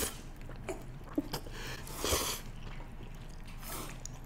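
Two people slurping and chewing spicy fire noodles close to the microphone: a few soft, wet slurps and chewing sounds with small clicks.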